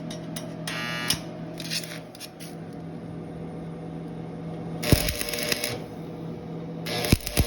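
Short crackling bursts over a steady low hum, typical of a MIG welder tacking on an exhaust pipe, with a couple of sharp metal knocks near the middle and the end.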